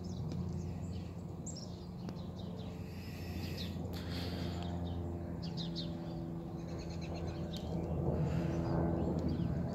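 Songbirds chirping and twittering in short calls over a steady low hum.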